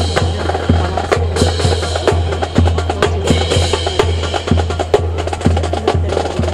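Rifle drill team marching in formation: a dense, fast run of sharp wooden clacks from rifles being slapped and handled and boot heels striking the pavement, over a low rumble.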